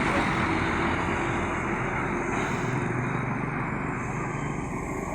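Steady engine and road noise of buses driving in convoy, with no horn sounding, easing off slightly toward the end.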